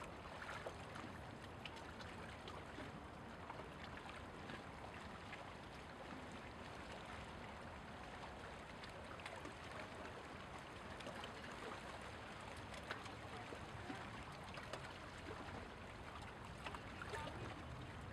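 Gentle bay water lapping and trickling at the shoreline in many small, irregular splashes, over a faint low rumble.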